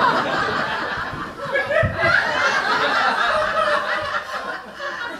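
Audience laughing throughout, with a low thump about two seconds in.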